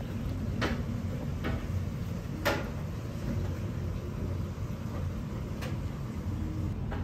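Steady low rumble of a restaurant room with a few short, sharp clicks, the loudest about two and a half seconds in.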